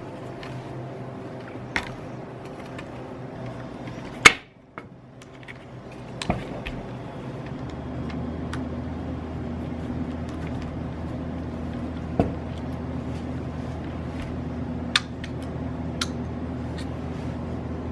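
Scattered sharp clicks and taps of a Phillips screwdriver and small plastic RC-truck parts being handled as screws are taken out, over a steady hum. The loudest click comes about four seconds in.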